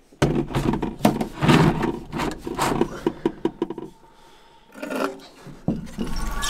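Gear being handled in an inflatable boat: rubbing, scraping and light knocks for about four seconds, then one more short scuffle. Near the end a common loon starts a long, steady wailing call.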